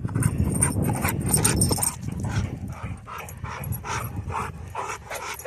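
A dog panting, quick regular breaths at about four a second.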